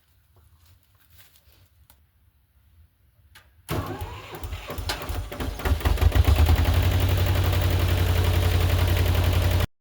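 An engine starts about four seconds in, catches and builds up over a couple of seconds, then runs steadily and loudly until it cuts off abruptly near the end.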